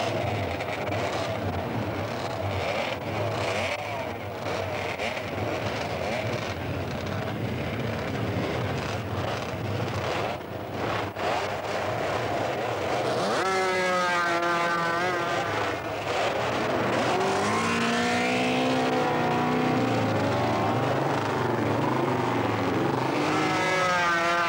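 Racing motorcycle engines running hard. About halfway through, a single engine takes over, its note rising sharply and then wavering up and down as it revs.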